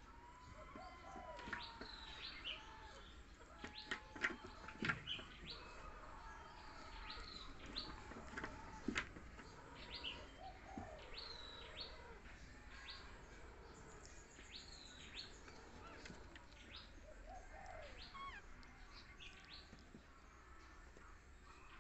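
Faint small-bird chirping in the background: short, high chirps scattered throughout, with a few soft clicks around four to five seconds in and again near nine seconds.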